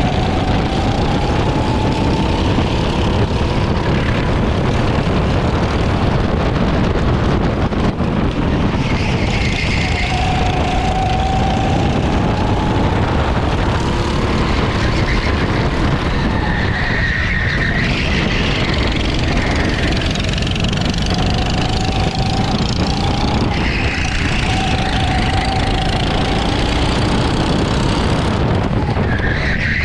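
CRG racing kart's engine under power, heard onboard: its pitch climbs slowly along each straight and falls away into the corners, several times over, with a heavy rush of wind and road noise underneath.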